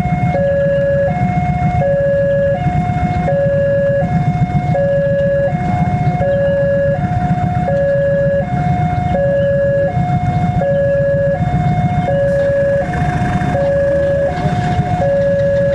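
Railway level-crossing warning alarm sounding a two-tone electronic chime, high and low notes alternating steadily about every three-quarters of a second, over the low rumble of an approaching diesel locomotive.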